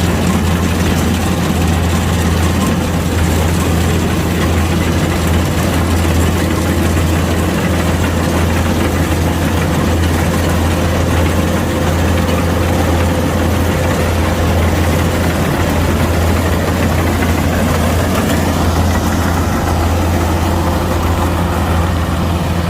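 Kubota DC-105X combine harvester's diesel engine running at a steady speed, a constant low drone with machinery noise over it.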